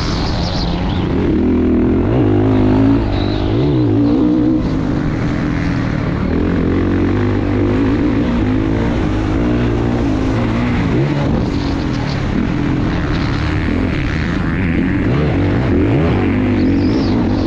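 Honda CRF450 motocross bike's single-cylinder four-stroke engine running hard while being ridden, its revs rising and falling again and again, with wind rushing over the microphone.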